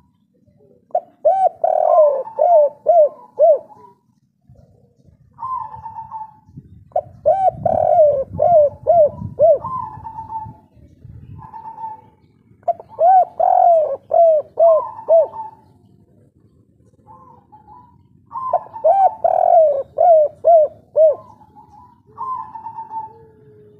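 Spotted dove (tekukur) cooing its 'kuk 3' song: about six repeated phrases, each a quick run of short notes ending in a longer, higher coo, with short pauses between them.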